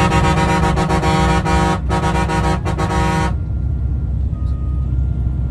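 A vehicle horn sounds in a long, loud blast with two brief breaks and cuts off about three seconds in, over the steady low rumble of a coach's engine and tyres on the road.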